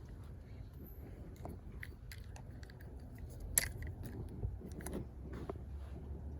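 Irregular small clicks and crunches of close handling, with one sharper click about three and a half seconds in, over a steady low rumble.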